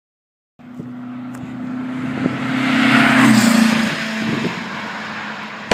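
A motor vehicle's engine starts about half a second in, after a moment of silence. It grows louder to a peak about three seconds in, with its pitch rising slightly, then eases off like a vehicle passing by.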